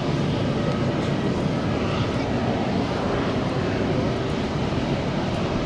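Airbus A350-900's Rolls-Royce Trent XWB turbofan engines running steadily at taxi power while the airliner turns on the taxiway.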